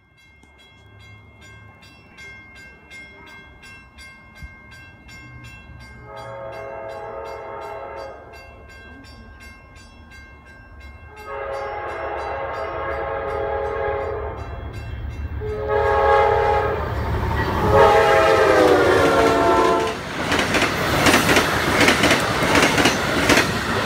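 Amtrak passenger train led by GE P42 diesel locomotives approaching and sounding its horn in the grade-crossing pattern: two long blasts, a short one, and a long one that drops in pitch as the locomotive passes. The diesel rumble builds throughout, and the rush of the passenger cars going by takes over near the end.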